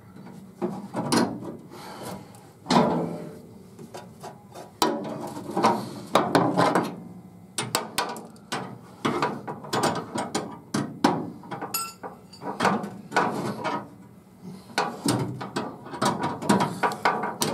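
Hand socket ratchet clicking in repeated bursts of strokes with short pauses between, as a bolt is run in and tightened.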